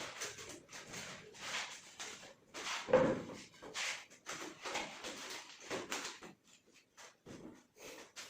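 Wood being worked by hand: repeated scraping strokes, roughly two a second and a little uneven, one stronger stroke about three seconds in, tailing off near the end.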